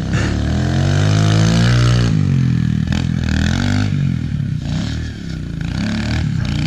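Kawasaki KLX 140L dirt bike's single-cylinder four-stroke engine revving as it rides: the pitch climbs over the first couple of seconds and drops back, then rises and falls several more times with the throttle.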